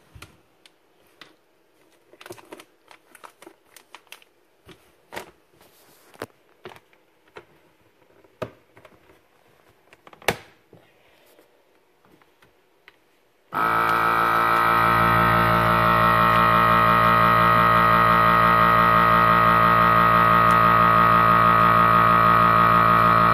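FoodSaver V2222 vacuum sealer: scattered light clicks and taps as the bag is set in and the machine handled. About thirteen seconds in, its vacuum pump starts suddenly and runs with a loud, steady hum, drawing the air out of the bag.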